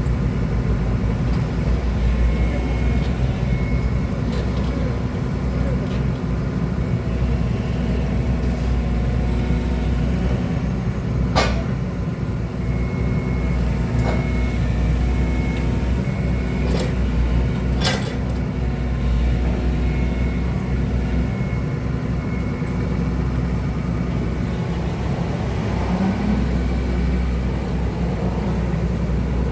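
Hydraulic excavator's diesel engine running steadily, with two sharp clicks about six seconds apart near the middle.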